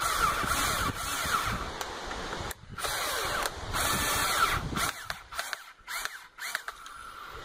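Power drill driving a small screw into PVC tube, run in bursts with its pitch rising and falling as the trigger is eased. There are two longer runs with a short break between them, then a few short spurts as the screw seats.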